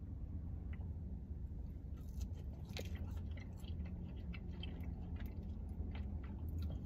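A person chewing cold, hard french fries dipped in ranch, with faint crunchy clicks starting about two seconds in, over a low steady hum.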